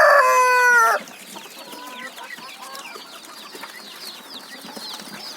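A rooster's crow ends about a second in, its last drawn-out note falling in pitch, followed by a flock of chickens keeping up a busy chatter of short high peeps and clucks.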